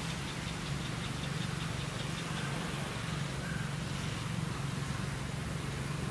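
Steady low engine hum, like an idling vehicle, with a faint high rapid ticking in the first two seconds or so.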